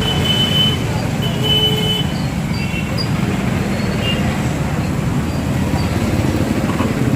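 Steady road-traffic noise with engines running, and a few short high tones in the first two seconds.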